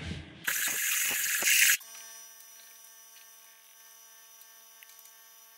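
Compressed air from a blow gun blasting for about a second into the flathead V8's valve port to clear crud from behind a valve, stopping abruptly. A faint steady electrical hum follows.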